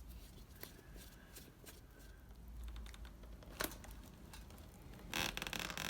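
Light, scattered clicks and taps of hand tools and small metal parts being handled while working on a motorcycle, with a sharper knock about three and a half seconds in. A hiss-like rush of noise starts near the end.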